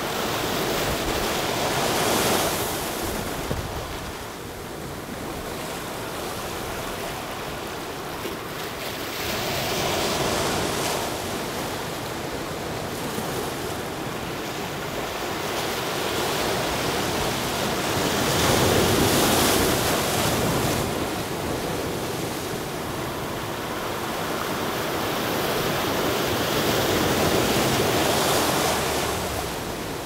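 Sea surf washing in, swelling and ebbing in slow surges about every eight seconds.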